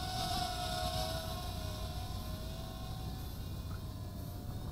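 Eachine Flyingfrog Q90 micro quadcopter's 8520 coreless motors and props whining in flight at a distance: a steady hum that wavers slightly in pitch, growing fainter after about two seconds. Low wind rumble on the microphone underneath.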